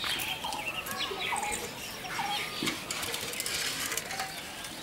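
Small birds chirping over and over in short, rising and falling calls, with a few light clicks mixed in.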